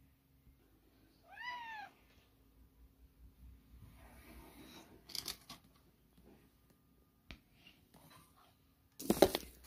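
A domestic cat meows once, a short call that rises and falls in pitch, about a second and a half in. A few faint clicks follow, and a short loud burst of noise comes near the end.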